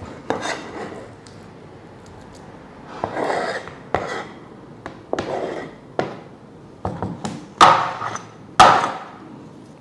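Kitchen knife scraping and tapping minced shrimp off a plastic cutting board into a bowl: a string of irregular knocks and short scrapes, the two loudest knocks near the end.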